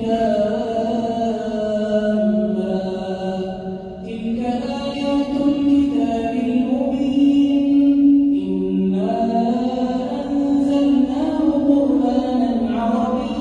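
A man's voice chanting Quran recitation in a melodic tajweed style, holding long drawn-out notes that glide between pitches, with short pauses for breath.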